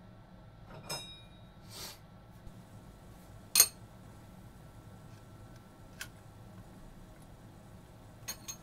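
A few sharp metallic clicks and clinks of metal tools being handled on a milling machine table. The first about a second in rings briefly, and the loudest comes about three and a half seconds in, with two quick ones near the end. Under them runs a low steady hum.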